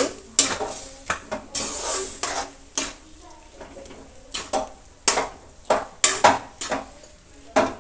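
Metal spatula scraping and knocking against a metal kadhai as a thick semolina and gram-flour batter is stirred, in a string of irregular scrapes about one or two a second.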